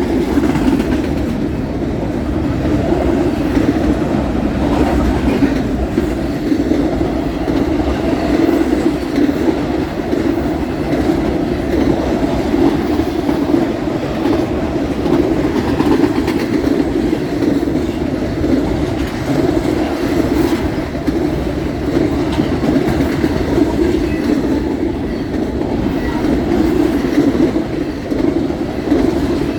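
Freight train cars rolling past at speed, a steady loud noise of steel wheels on the rails.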